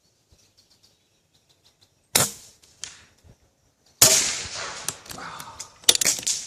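Homemade .357 big-bore air rifle firing: a sharp crack about two seconds in, then another a couple of seconds later with a longer tail, followed by a few sharp clicks near the end.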